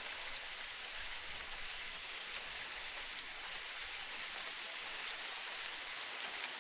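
Steady, even hiss of water noise, bright and rain-like, with a few faint scattered ticks.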